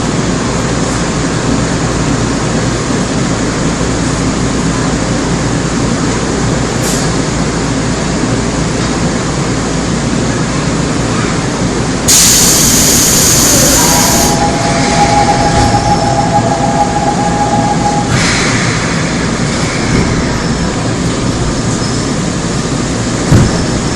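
Inside a Seoul Metro Line 2 old 2000-series resistor-controlled subway car: the steady rumble and noise of the train. About halfway through, a sudden loud hiss lasts about two seconds, followed by a steady two-note tone that holds for about four seconds before stopping.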